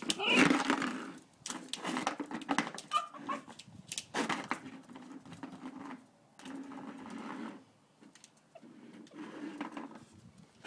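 A dog vocalizing in repeated drawn-out grumbles of about a second each, the sound of a frustrated dog, with scattered clicks and knocks between them.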